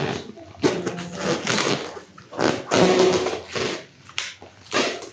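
A person hiccuping: short, sharp voiced hiccups about every two seconds, with quieter vocal sounds between them.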